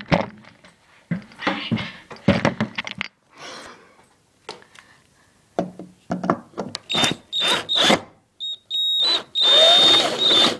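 Knocks and clatter of handling, then from about seven seconds in a cordless drill runs in several short bursts with a steady high motor whine, backing out screws.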